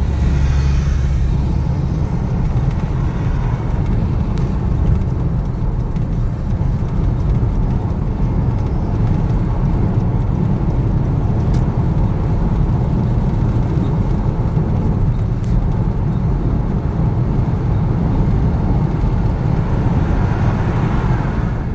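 A car being driven: a steady low rumble of road and engine noise.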